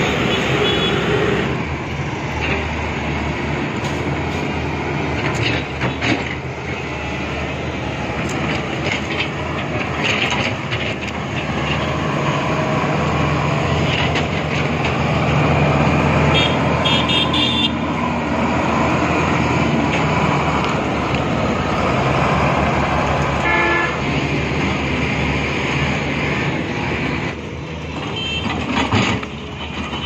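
Heavy diesel construction machinery running: the engines of a SANY crawler excavator and a Shantui SL50W-2 wheel loader drone steadily while they work, with scattered knocks and clanks. A few short high toots come about halfway through and again later.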